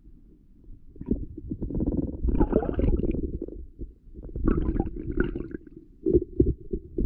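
Creek water heard through an underwater camera: a muffled low rumble and gurgle with irregular knocks. It swells and fades in uneven bouts.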